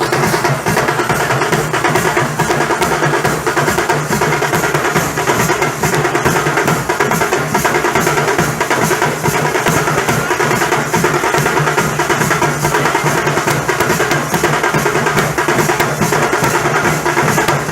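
Nasik dhol ensemble drumming with thasha snare drums: dense, fast, driving strokes with a steady low dhol pulse, loud and unbroken.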